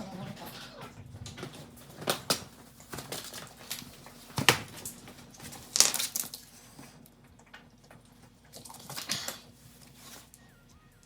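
Scattered sharp knocks and clicks, the loudest about four and a half and six seconds in, from parts and tools being handled during wheel and suspension work.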